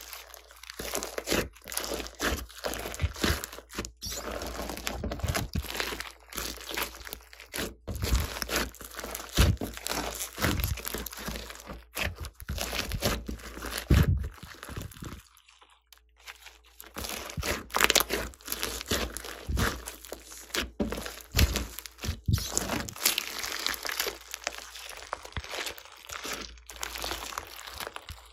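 Glossy slime full of foam beads being squeezed, kneaded and stretched by hand, giving a dense run of crunchy crackles and sticky squishes, with a short lull about halfway through.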